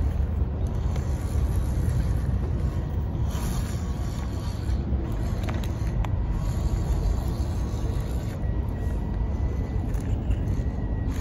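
A WPL C34 RC crawler's small electric motor and gearbox running as it crawls over dry twigs and leaves, under a steady low rumble, with a few faint clicks of twigs and a faint whine late on.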